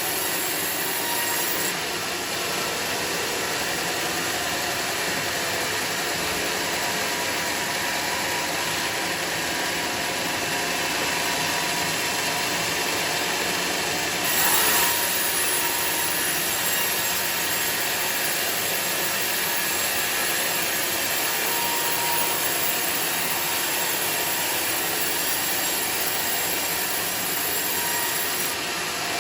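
Sawmill machinery running steadily with a dense mechanical noise, briefly louder about halfway through.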